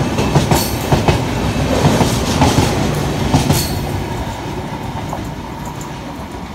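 Express train's passenger coaches rolling past at speed, their wheels clattering over rail joints in repeated knocks. About four seconds in, the last coach goes by, and the clatter and rumble fade as the train draws away.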